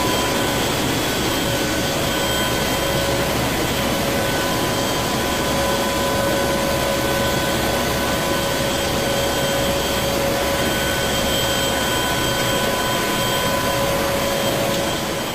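Steady roar inside a military transport aircraft in flight with its rear ramp open: engine drone and rushing air, with an even hum of several pitches.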